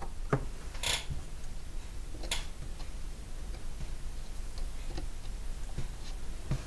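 Light, scattered clicks and taps of metal tweezers and a small wooden trim strip against the wooden model as the strip is glued into place, the sharpest about a second and two and a half seconds in, over a steady low hum.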